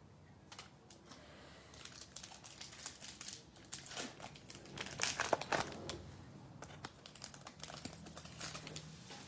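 Foil wrapper of an NBA Hoops trading card pack being torn open and crinkled by hand, an irregular crackle that is loudest about five seconds in.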